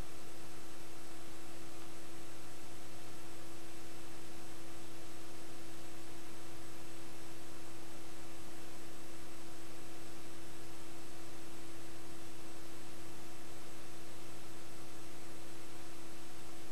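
Steady electrical hum with an even hiss and nothing else: line noise on a recording that carries no game audio.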